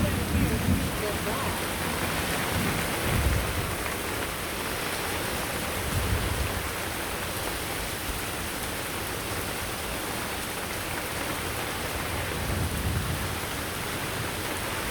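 Heavy rain falling as a steady hiss, with low rumbles of thunder rolling in several times: near the start, around three and six seconds in, and again near the end.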